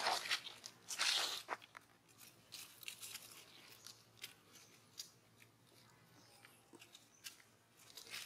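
Dry leaves crackling and crunching in short, scattered bursts as macaques move over leaf-strewn ground, with a louder rustling burst about a second in.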